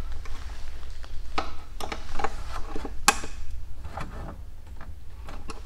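Hand ratchet wrench clicking in irregular short runs as a fastener is tightened, with one sharper metallic click about three seconds in.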